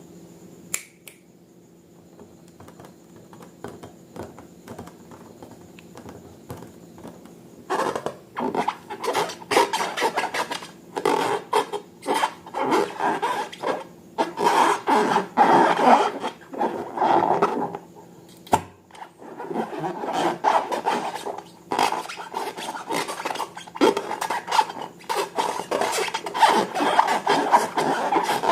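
Slime being worked and mixed, with irregular rubbing, scraping and crackling strokes. It starts about eight seconds in, after a quieter stretch with a faint hum, and a sharp click comes midway.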